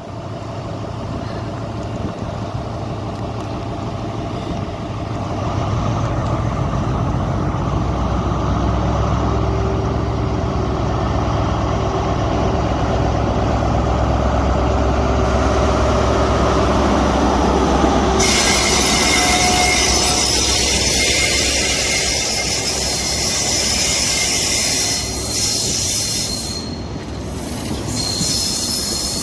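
Train running at the station with a steady low engine hum. About eighteen seconds in, a harsh high-pitched wheel squeal and rail noise join it.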